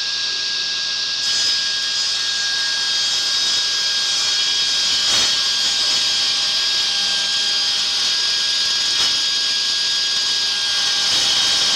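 Table saw running at full speed with a steady high whine over a hiss, trimming a thin shaving off a black walnut runner to make it fit the saw's miter slot.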